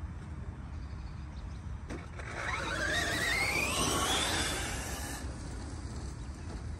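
Arrma Mojave 4S RC short course truck driving past on grass, its brushless motor and drivetrain whining and rising in pitch as it accelerates. The whine is loudest midway and cuts off suddenly about five seconds in, over a steady low rumble.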